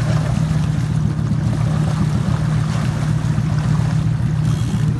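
A boat's motor running steadily with a low hum, with water washing along the hull.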